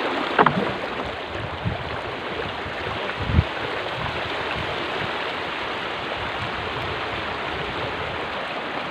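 Shallow river water rushing steadily over stones as a fishing tarpaulin is dragged through it, with two brief low thumps, one near the start and one about three seconds in.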